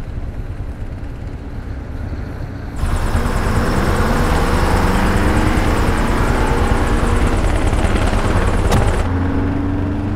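City bus engine and road noise heard from on board: a low steady rumble, then from about three seconds in much louder, with the engine pitch rising as the bus pulls away, a single sharp click near the end.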